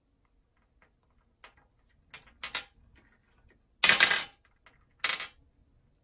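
Amazon parrots knocking and rattling hard toys against a glass tabletop: a few light clicks, then short clattering rattles, the loudest about four seconds in and another about a second later.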